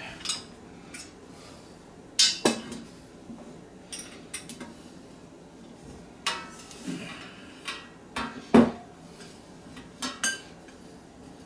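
White metal tube pieces of a flat-pack stand knocking and clinking against each other as they are fitted together by hand: scattered sharp knocks, the loudest about two seconds in and about three-quarters through.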